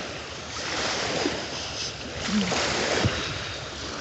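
Small waves washing up the beach at the water's edge, surging twice.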